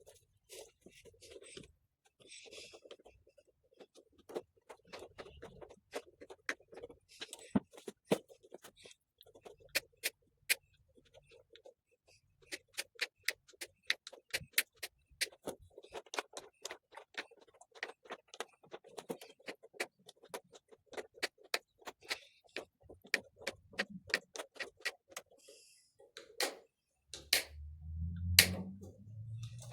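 Wire mesh being cut to size with snips: a long run of sharp, irregular metallic clicks, with a louder low rumble and knock near the end.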